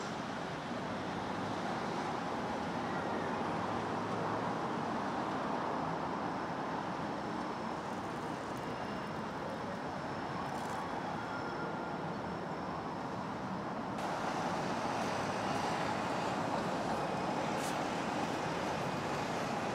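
Steady road traffic noise from city streets, a continuous even rumble with no single vehicle standing out. It gets a little louder about fourteen seconds in.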